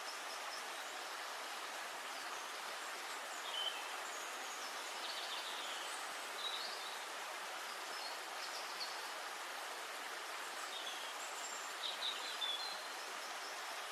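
Steady outdoor background hiss with scattered short, high bird chirps, some of them sliding in pitch, clustered about twelve seconds in.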